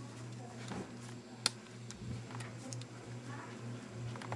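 Ceiling fan running with a steady low hum, with scattered small ticks and one sharp click about a second and a half in.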